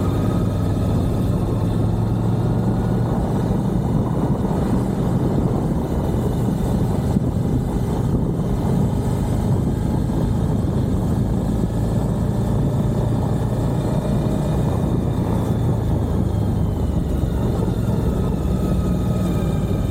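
Suzuki V-Strom 1050XT's V-twin engine running steadily under way, its note shifting slightly a few times, with a constant rush of wind and road noise.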